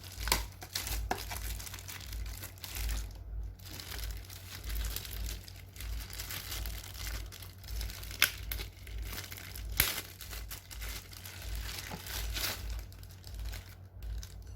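Packaging being handled and opened, crinkling and rustling throughout, with a few sharp clicks.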